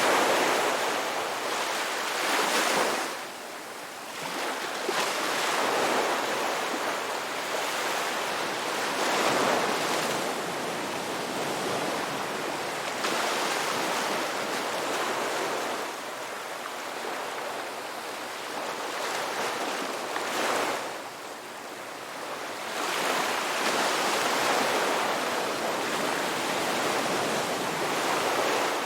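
Ocean surf: waves breaking and washing up the shore, swelling and easing every few seconds, with brief lulls about three seconds in and again about twenty seconds in.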